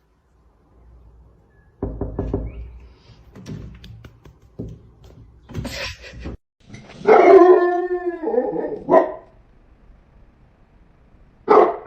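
A dog barking and yelping, with a few knocks before it; the loudest is a long drawn-out bark about seven seconds in.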